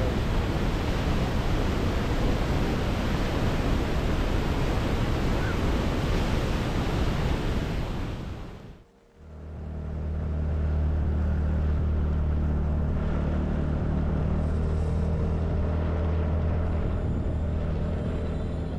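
A steady, loud rushing noise, like wind or falling water, fades out about nine seconds in. A steady low drone then fades in and runs on.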